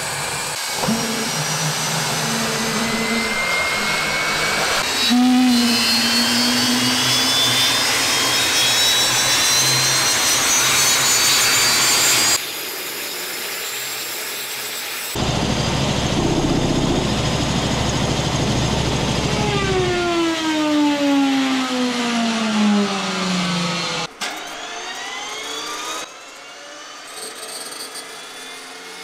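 GTD-350 helicopter turboshaft engine running: a loud whine rising in pitch as the turbine spools up, then after a few abrupt jumps a whine falling steadily as it winds down, with the sound dropping off near the end.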